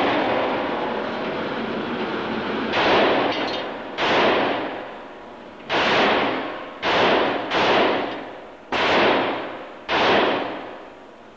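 Seven shots from a large-frame semi-automatic pistol fired at an irregular pace of roughly one a second, starting about three seconds in, on an indoor range where each report rings out and dies away in the room's echo.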